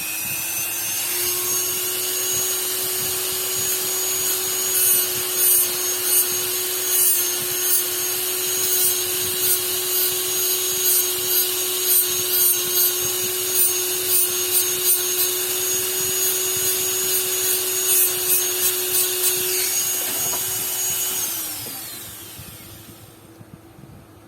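Small high-speed electric power tool spinning up, running steadily with repeated short grinding contacts against the work, then spinning down near the end.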